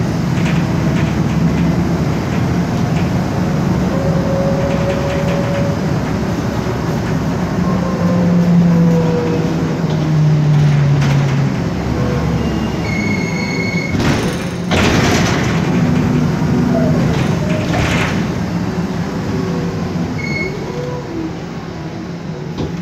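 Cabin sound of a MAN Lion's Classic city bus on the move: its MAN E2876 straight-six CNG engine drones steadily, with a whine from the ZF Ecomat 6HP504C automatic gearbox that rises and falls as the bus changes speed. A short high beep sounds twice, and there are two loud bursts of hiss around the middle.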